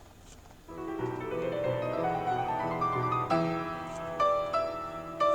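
Background piano music. After a faint start, the piano comes in under a second in with a rising run of notes, then plays separate struck notes and chords.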